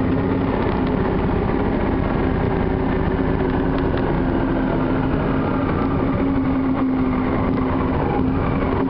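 Triumph Thunderbird motorcycle engine running at a steady cruise, a constant hum with one held tone and no change in revs.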